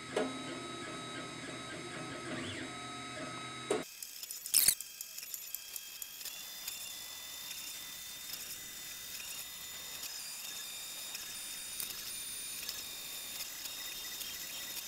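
Monoprice Select Mini 3D printer running a print: its stepper motors whine in several steady tones that change pitch as the head moves. About four seconds in the sound drops abruptly to a quieter, high steady whine with a sharp click and scattered light ticks.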